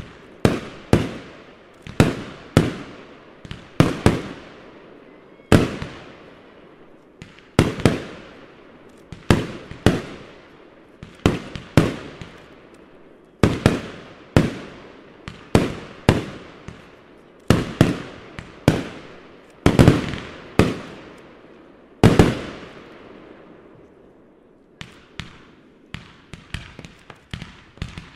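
Aerial fireworks bursting in a steady run, one loud bang about every second, each followed by a fading rumble of echo. After a short lull near the end comes a quicker patter of smaller bangs.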